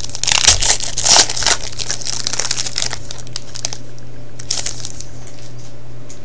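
Foil trading-card pack wrapper being torn open and crinkled as the cards are pulled out. The crinkling is dense and loud for about the first three seconds, then turns to a few brief rustles before stopping.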